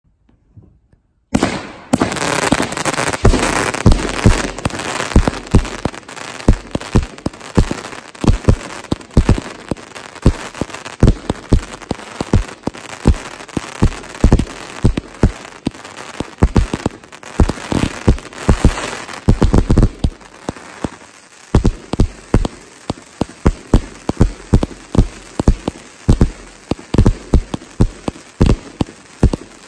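Vulcan 'Oman' 144-shot fireworks cake firing, starting about a second in: a rapid run of shots and bursts under a dense crackle from the crackling mines and crackling bouquets. For the last third the shots come more spaced and separate.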